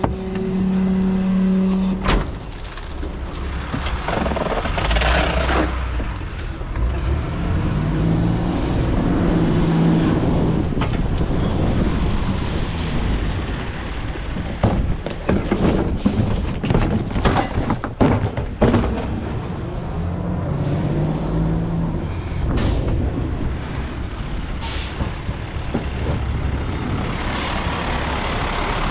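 Garbage truck running, with hisses of air brakes and a run of clanks and bangs in the middle.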